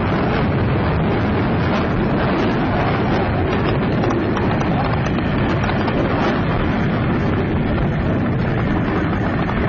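Jet aircraft flying low over open desert: a loud, steady rushing rumble of engine noise with no break.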